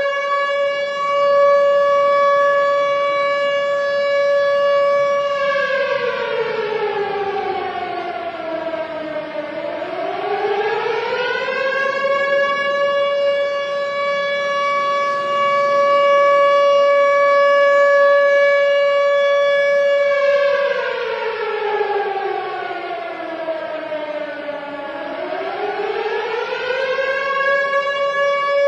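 Civil defense air-raid siren sounding a long steady wail that twice slides slowly down in pitch and climbs back up to the same note.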